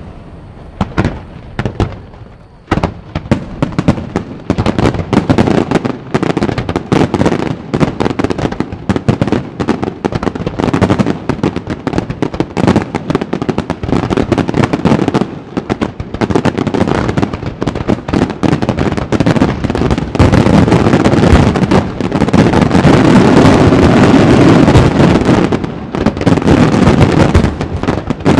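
Aerial fireworks display: shells bursting in rapid, overlapping volleys, thickening into an almost unbroken barrage of bangs about twenty seconds in.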